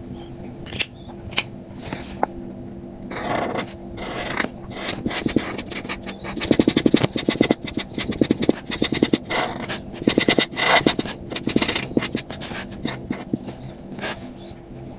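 Coloring strokes on paper: rapid back-and-forth scratching, thickest from about six seconds in, with a few separate clicks in the first three seconds, over a faint steady hum.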